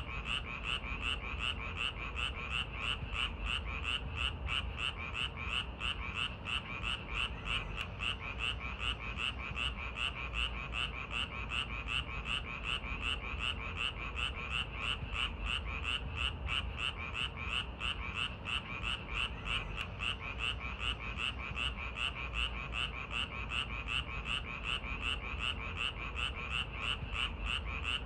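Frogs croaking in a steady, rapid run of short calls, about three a second and unbroken throughout, over a low steady rumble.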